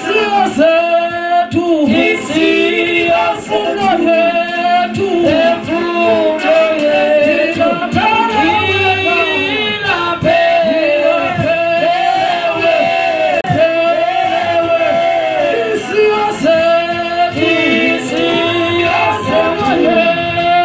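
A man singing a Xhosa worship chorus into a handheld microphone, in long held and gliding notes with no break.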